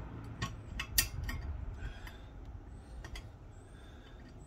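Metal clicks and clinks from the loading pin and its fittings being handled on a plate-loaded Rolling Thunder grip setup: a sharp click about a second in, with a few lighter ticks before and after.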